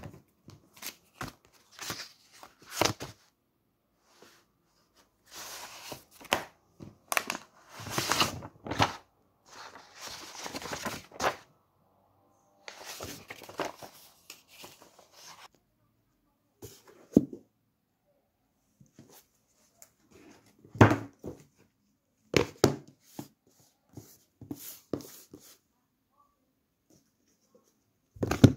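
Books and papers being handled: sheets and pages rustling in short noisy bursts, with scattered knocks and clicks as things are moved on the desk.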